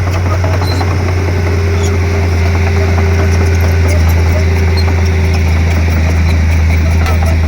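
Komatsu D31P crawler bulldozer's diesel engine running steadily with a deep, even drone, with scattered light clicks over it.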